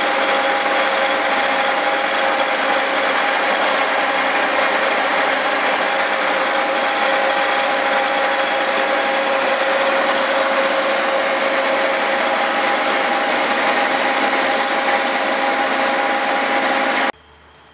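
Cincinnati horizontal milling machine climb-cutting splines into a 4340 steel axle shaft with a form cutter. The cut makes a loud, steady noise with a few steady tones from the machine, and it stops abruptly near the end.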